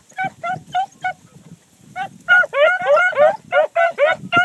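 A pack of beagle hounds giving tongue: short, pitched barks, spaced out at first, then from about two seconds in several hounds barking rapidly over one another. This is the cry of a hound pack running a scent line.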